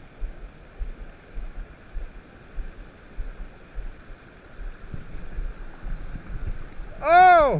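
Fast river water rushing past, with wind gusting on the microphone. Near the end comes a brief loud cry that rises and then falls in pitch.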